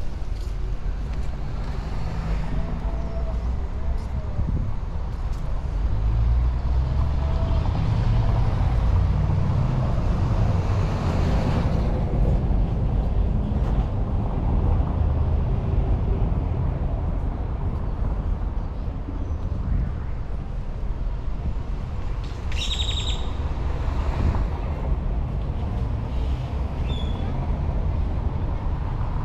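Street traffic: vehicle engines running and passing, with a louder pass swelling and fading about halfway through. A short high-pitched squeal sounds about three quarters of the way in.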